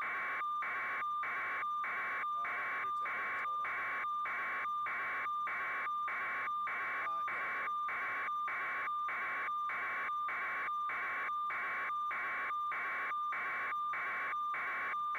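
Radio-link static: a steady hiss with a constant mid-pitched tone, broken by short, even dropouts about twice a second.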